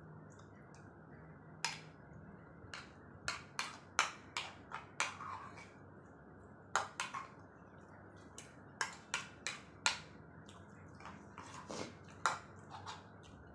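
A metal spoon clicking and scraping against a bowl while misal is scooped and eaten: irregular sharp clicks, single and in quick clusters, beginning a couple of seconds in.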